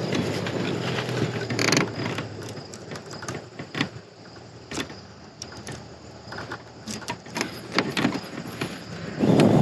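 Scattered small clicks and knocks of fuses being pulled from and pushed back into a truck's fuse box with a fuse puller, with a brief scrape or rustle about two seconds in.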